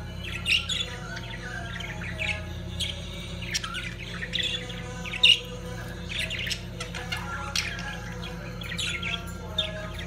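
Budgerigars chirping and chattering during courtship: a run of short, irregular chirps and sharp squawks, a few louder than the rest, over a steady low hum.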